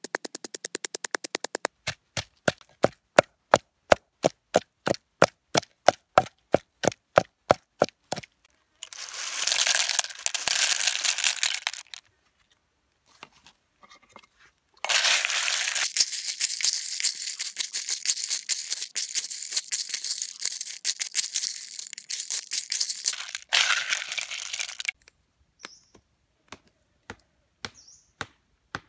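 Wooden pestle pounding garlic and red chili in a wooden mortar, very fast at first, then about three strokes a second. Then blood cockle shells rattle and clatter against each other in the mortar in two long stretches, and a few separate knocks of chopping come near the end.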